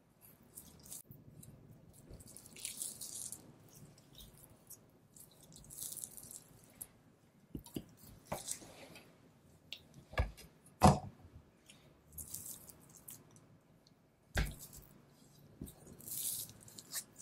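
Knife slicing through fat and sinew on a raw Wagyu beef knuckle: short, soft, hissy cutting strokes repeated every second or two, with wet sounds from the meat. A few dull thumps come about two-thirds of the way in, the loudest about halfway through, as the heavy meat is handled on the cutting board.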